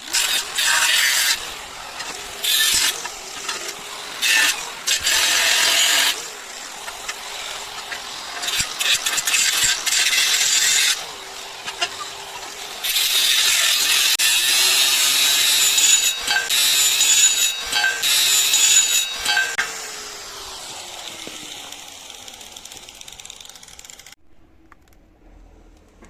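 Power tool working metal in loud stretches that start and stop abruptly, with a steady whine in the longest stretch; just after the noise stops, a falling whine as the tool winds down.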